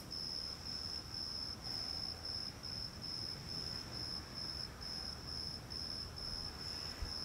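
Cricket chirping: a high, even pulse repeating about three times a second, over a faint low rumble.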